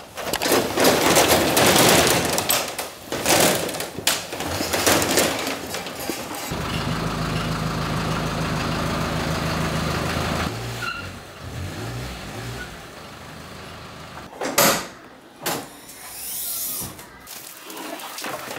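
A metal roller shutter rattling loudly as it is rolled up, followed by a van's engine running steadily for a few seconds and then easing off. Near the end, two sharp thuds about a second apart.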